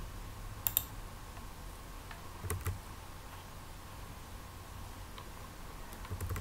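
A few separate computer keyboard keystrokes and clicks: a quick pair about a second in, another pair about two and a half seconds in, and one or two more near the end, over a faint steady hum.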